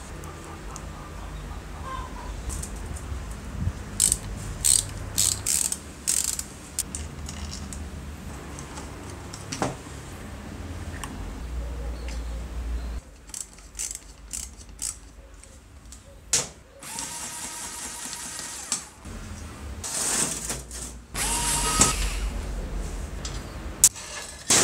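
Clicks and clinks of metal parts and a screwdriver as an old aluminium-bodied jigsaw is taken apart, with sharp clicks bunched about four to six seconds in and again near the end.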